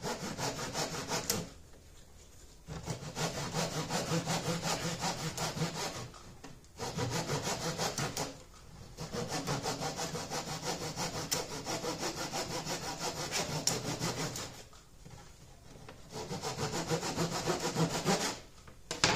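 Handsaw cutting through soft pine, quick back-and-forth strokes in five runs with short pauses between them.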